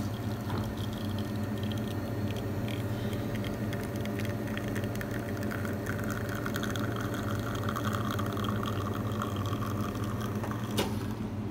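Commercial espresso machine's pump humming steadily while shots are pulled, with a single sharp click near the end.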